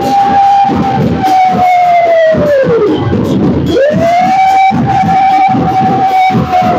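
Loud festival music: dense drumming and metal percussion under a long blown note that swoops up, holds steady for about three seconds and falls away, twice.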